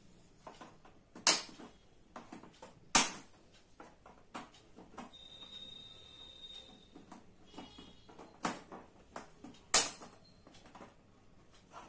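Plastic snap-fit locks of an LED TV's back cover popping loose as the cover edge is pried up: four sharp snaps, with lighter plastic clicks and creaks between.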